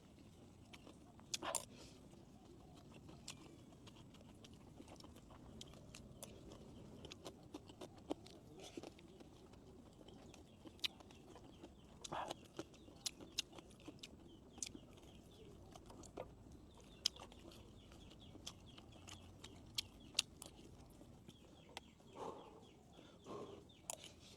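Quiet mukbang eating: soft chewing of rice and grilled pork ribs with scattered sharp clicks of chopsticks and spoon against the bowl. Chickens call faintly in the background, a few calls near the end.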